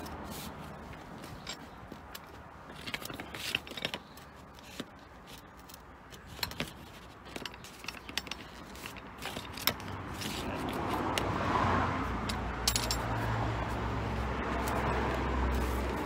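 Scattered small clicks, taps and scrapes of hands gripping and working a plastic cable duct pipe. A steady low rumble comes in about ten seconds in.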